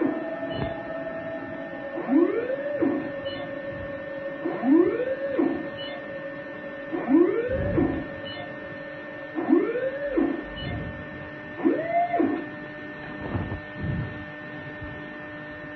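Electroacupuncture (Voll) measuring instrument's tone: a pitched electronic whine that rises steeply and then falls back each time the probe is pressed to a point on the hand, repeating about every two seconds over a steady electronic hum. The climbing pitch follows the reading taken at each acupuncture point.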